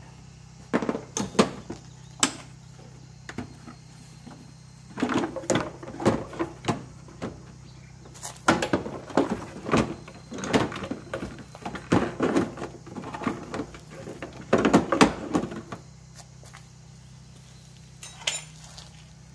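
Hand tools at work on top of a Suzuki K6A engine: a ratchet wrench on a long extension clicking in quick runs, mixed with knocks and clatter of tools and parts, as the spark plugs are loosened and removed. The clicking is busiest from about a third of the way in until most of the way through, with a last few knocks near the end.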